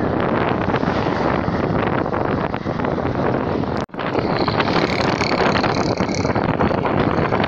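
Strong gusting wind buffeting the phone's microphone with a dense, rough rushing noise. It cuts out for an instant about four seconds in, then carries on just as loud.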